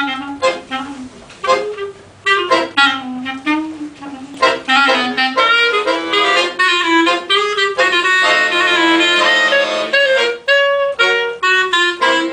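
Clarinet and chromatic button accordion playing a duet: a moving clarinet melody over short, repeated accordion chords, with the accordion holding longer chords from about eight seconds in.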